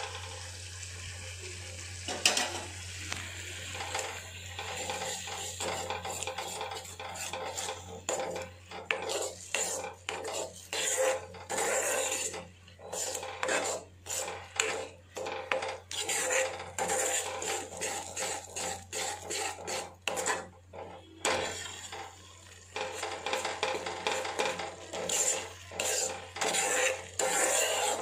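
Steel ladle stirring and scraping through a thick, boiling tamarind-and-spice mixture in an iron kadai, in repeated strokes of about one or two a second, with a short pause about twenty seconds in. It is the stage of stirring the spice powders into the pachadi.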